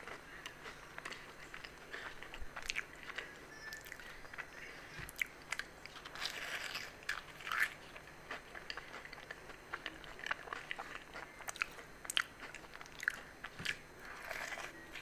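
Close-up eating of a fried aloo samosa: the crisp pastry crunching and crackling under the bites, with chewing in between. A denser, louder run of crunching comes about six to seven and a half seconds in.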